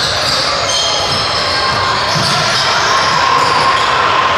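Sounds of a basketball game in a large gym: the ball bouncing on the hardwood court amid steady echoing noise from players and spectators.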